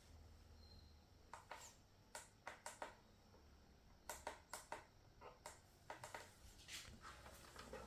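Near silence with a faint low hum and scattered light clicks and taps, several in quick succession.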